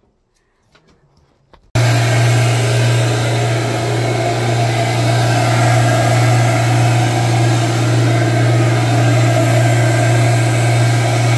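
Carpet extractor's vacuum motor running loud and steady with a strong low hum, sucking through the floor wand on the carpet. It cuts in abruptly about two seconds in, after a near-silent start with a few faint clicks.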